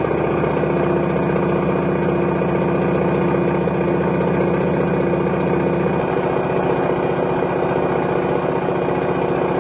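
Retsch MM 400 mixer mill running, its two screw-top grinding jars oscillating with the grinding balls striking inside them: a loud, steady buzzing drone, with a slight change in tone about six seconds in.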